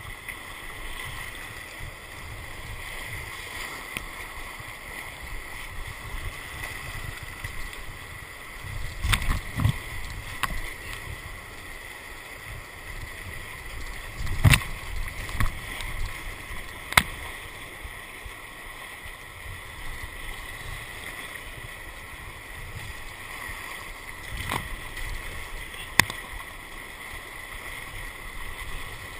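Whitewater rushing and churning around a whitewater kayak surfing a river wave, heard through a boat-mounted GoPro. Several sharp knocks and splashes stand out, the loudest about nine and fourteen seconds in.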